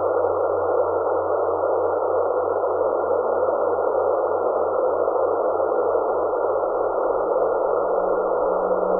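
Static hiss from an RTL-SDR receiver in lower-sideband mode, tuned to the Graves radar frequency of 143.05 MHz to listen for meteor echoes. A faint low steady tone comes in about two seconds in and grows slightly stronger and lower near the end.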